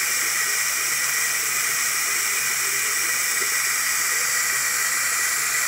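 Bathroom sink tap running with hot and cold water mixed, a steady hiss of water pouring into the basin.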